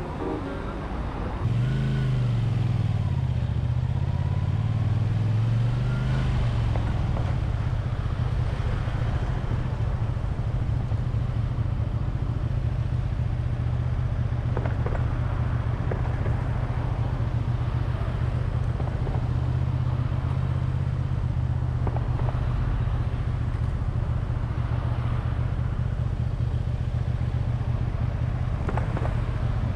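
Honda VT250F Integra's 250 cc V-twin engine running on the road. The revs dip and rise over the first few seconds, then the engine holds a steady cruise.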